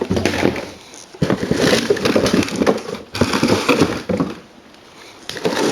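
Clattering and rustling of hard plastic items and boxes being handled and moved during tidying, in two stretches with a short pause about a second in, going quiet after about four seconds before a last burst near the end.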